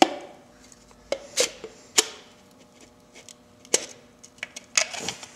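Piston being tapped down through a ring compressor into a cylinder bore of a VW/Audi 1.8T 20-valve engine block: a series of sharp, irregularly spaced taps, some light and some harder.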